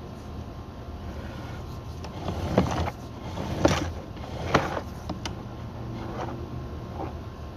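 A steady low mechanical rumble with a handful of sharp knocks, roughly a second apart, in the middle.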